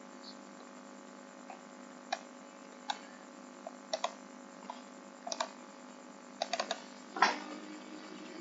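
Irregular sharp clicking: about a dozen clicks, some in quick pairs and triplets, with the loudest near the end.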